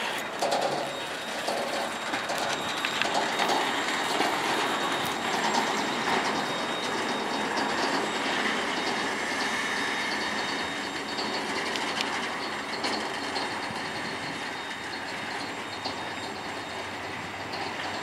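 Freight train wagons rolling past, their wheels clicking steadily over the rail joints, with a faint wheel squeal about halfway through. The sound eases off slightly near the end as the train moves away.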